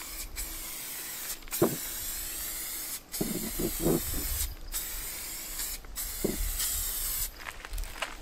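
Aerosol spray paint can hissing in about six short sprays of a second or so each, with brief breaks between them.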